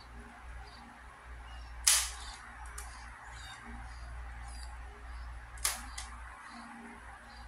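Ju Xing Carbon Fiber 3x3 fidget spinner handled and flicked: two sharp clicks about four seconds apart, the second as it is set spinning, with faint small ticks from the fingers and spinner between them.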